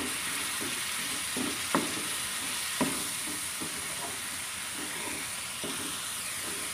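Ground spice paste sizzling in hot oil in a non-stick frying pan while a spatula stirs and scrapes it: a steady frying hiss with repeated scraping strokes, and two sharper knocks about two and three seconds in.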